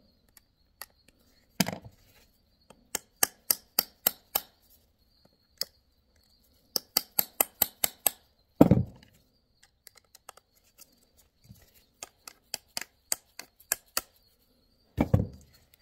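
Hammer tapping a punch against a rivet in the metal housing of a steering-wheel airbag module, driving the rivet through: sharp metallic taps in quick runs of about six to eight, with two duller, heavier thuds, one about nine seconds in and one near the end.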